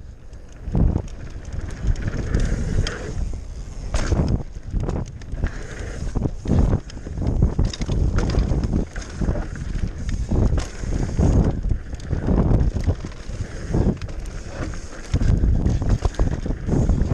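Mountain bike being ridden over a rough trail: gusty wind noise buffets the microphone, with frequent rattles and knocks from the bike over the ground.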